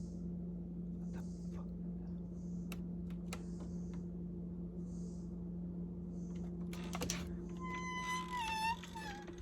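Unidentified night animal noises: soft high chirps repeating about once a second over a steady low hum, with a few sharp clicks. Near the end comes a wavering, whining call that falls in pitch. The noises are bird-like and bug-like at once.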